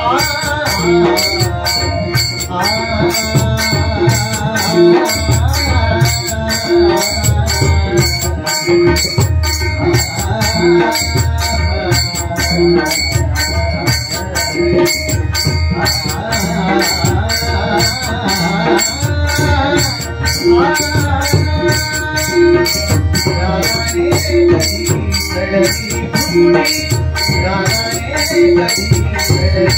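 Devotional bhajan music: pakhawaj and tabla drumming with small hand cymbals keeping a fast, steady jingling beat under a winding melody line.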